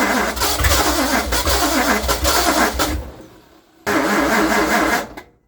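Ford FE V8 being cranked by its starter in two tries, a long one and then a short one about a second later, without catching. The battery had only a brief charge, and a jump is put on right afterwards.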